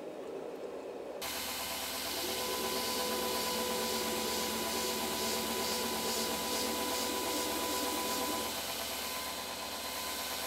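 Belt grinder running with an axe edge held against its large contact wheel. After a sudden start about a second in, there is a steady grinding hiss over a motor hum and whine, easing about eight and a half seconds in. Before that, a brief low bubbling comes from the hot axe head in the quench tank.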